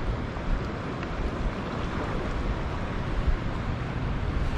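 Steady wind noise on the microphone over the wash of small surf against a rocky reef shoreline, with a deep rumble and no distinct events.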